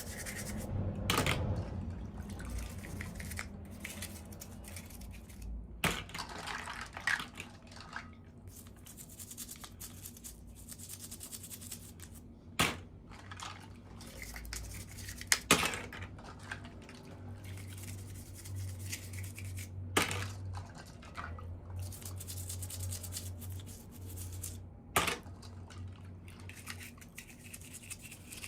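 Hands unboxing small plastic toys: scattered sharp clicks and taps of hard plastic pieces and packaging, with soft rustling handling in between.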